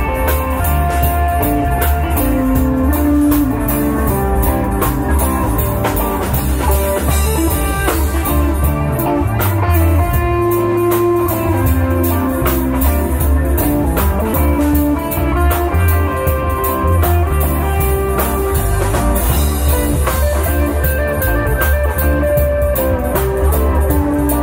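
Live band playing amplified electric guitars over a drum kit with a steady beat.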